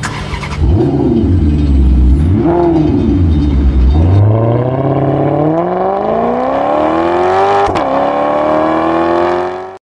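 Race car engine, rumbling low with short revs at first, then accelerating hard with its pitch climbing steadily. About eight seconds in there is a brief dip and click, as at an upshift, and it climbs again until it cuts off abruptly.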